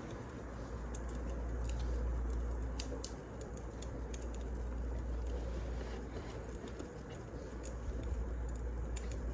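Wood fire crackling, with irregular sharp pops and ticks over a low steady rumble.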